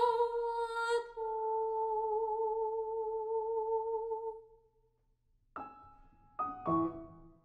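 Coloratura soprano holding a long high note that softens and fades out about four and a half seconds in. After a short silence the piano comes in with short, detached chords near the end.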